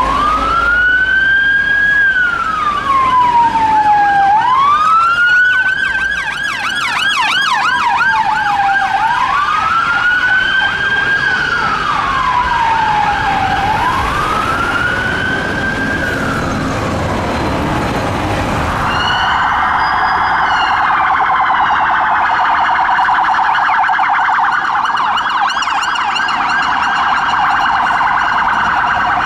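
Police vehicle sirens on an emergency run: a slow wail rising and falling about every four and a half seconds, with a second siren briefly overlapping, then switching about two-thirds of the way through to a fast yelp.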